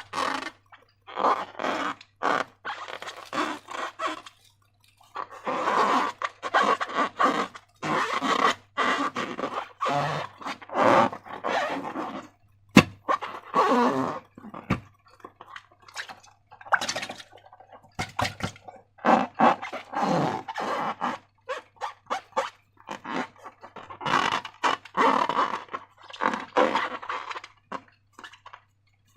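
Sticky slime being squeezed and worked by hand, squelching and crackling in irregular bursts with short pauses, with one sharp click about thirteen seconds in.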